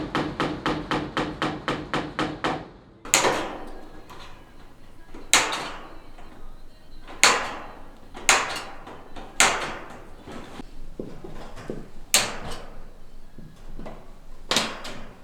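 Construction knocking on wood: a fast, even run of ringing knocks, about five a second, stops near three seconds in. Then come single heavy blows every second or two, like hammer strikes driving nails.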